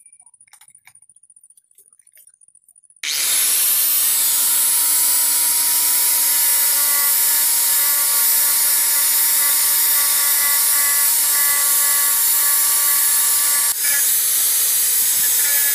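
About three seconds in, an angle grinder starts and runs steadily with a whine. Its abrasive disc grinds against the wooden handle of a bark knife, sanding it down.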